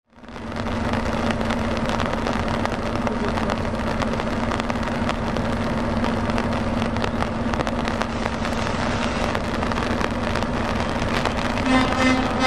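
Convoy of heavy trucks (Volvo FH and Scania tractor units) rolling along a wet road: steady engine drone and tyre hiss, fading in at the start. A short pitched tone sounds near the end.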